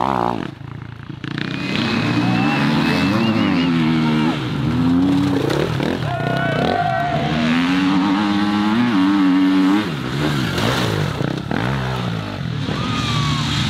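Enduro dirt bike engines revving hard, the pitch climbing and dropping again and again as the throttle is opened and shut on rough ground. Several bikes are heard in turn.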